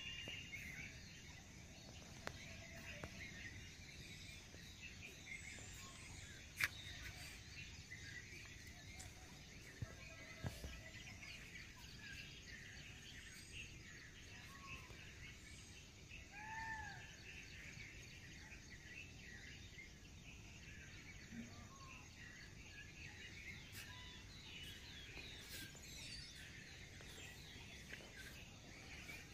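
Faint outdoor ambience of many birds chirping and calling, with now and then a louder arched call and a couple of sharp clicks.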